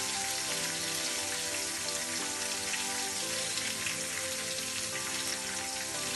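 Battered shrimp deep-frying in hot oil in a frying pan, a steady crackling sizzle, under background music.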